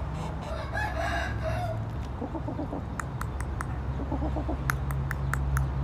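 Gamecock roosters calling: a short crow in several parts about half a second in, then two runs of quick low clucks. Sharp ticks in the second half, over a steady low hum.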